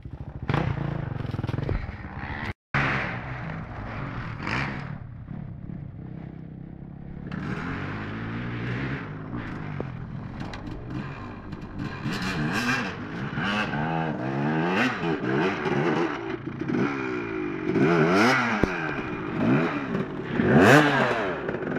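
Dirt bike engine revving up and down again and again in short blips, getting louder near the end as the bike comes close.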